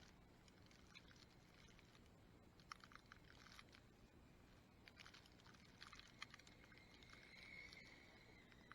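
Faint whine of a small radio-controlled vehicle's electric motor and drivetrain, swelling briefly near the end, with scattered light crackles of snow crunching under its wheels.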